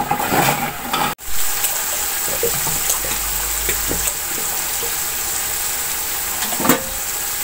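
Onion-tomato spice masala sizzling and bubbling in oil in a large metal pot, a steady hiss with a few small pops: the bhuna stage, with a splash of water added cooking off. The sound cuts out briefly about a second in.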